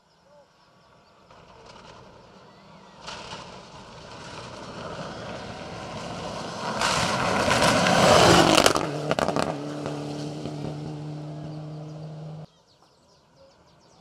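Mitsubishi Lancer Evolution rally car approaching at full speed on gravel, growing louder to a pass with a falling pitch, tyres spraying gravel and a few sharp cracks. As it moves away the engine holds a steady note, then the sound cuts off suddenly, leaving a much quieter engine in the distance.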